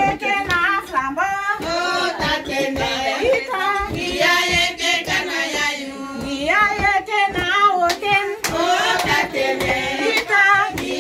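Women singing a song together, with hand claps sounding at irregular intervals through the singing.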